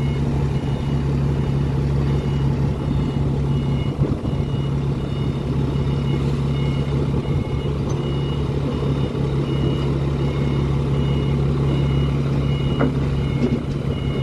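A heavy diesel engine runs steadily with a two-tone warning beeper sounding about once a second, as a mobile crane lifts a shipping container off a truck.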